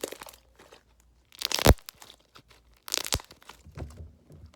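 Clear slime being squeezed and stretched close to the microphone for a crackle test, giving scattered crackles and pops. The two loudest bursts come about a second and a half in and again around three seconds.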